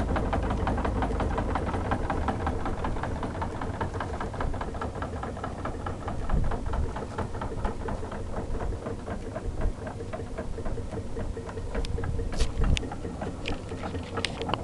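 Early-1900s threshing machine, refitted with a 10 hp electric motor, running as it threshes sulla seed: a steady mechanical rattle and hum with a rapid, even ticking, and a few sharp clicks near the end.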